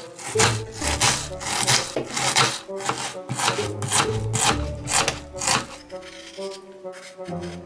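Kitchen knife slicing through an onion and striking a cutting board, repeated cuts about two to three a second that stop about five and a half seconds in. Soft background music with held notes underneath.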